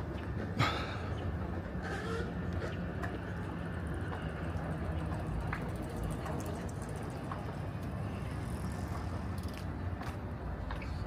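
Steady low vehicle rumble with a sharp click about half a second in.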